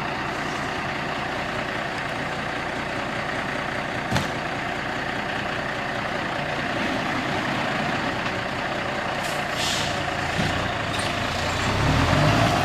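Semi-truck diesel engine idling steadily, with a short hiss of air brakes about two-thirds of the way through. The engine's rumble grows louder near the end.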